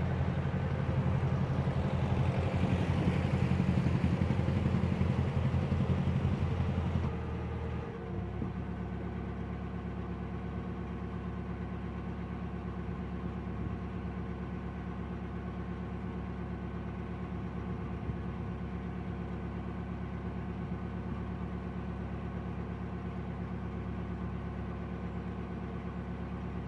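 Narrowboat diesel engine running steadily at cruising speed, louder and fuller for the first seven seconds or so, then dropping suddenly to a quieter, even note.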